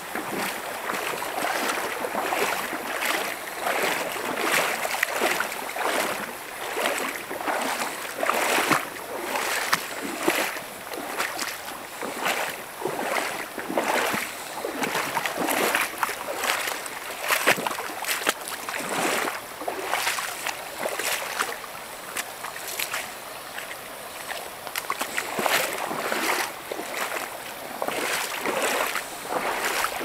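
Shallow stream babbling over rocks and stones: a steady rush of running water with constant small splashes that rise and fall from moment to moment.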